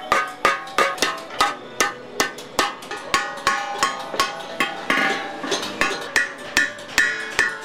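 Hand hammer striking a domed copper lid in a steady rhythm, about three to four blows a second, each blow ringing briefly in the metal. The copper is being hammered into shape by hand.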